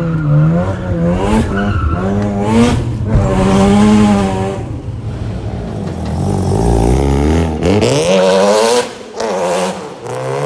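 Sports car drifting: the engine revs rise and fall over and over, with tyres squealing and skidding on the tarmac as the car slides sideways.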